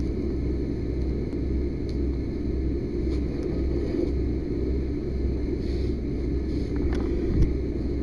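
Fire hose spraying a steady jet of water, heard as an even low rumble, with a short knock about seven and a half seconds in.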